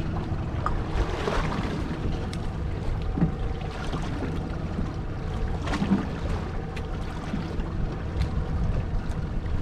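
Steady wind on the microphone and sea noise aboard a small fishing boat, over a low steady hum.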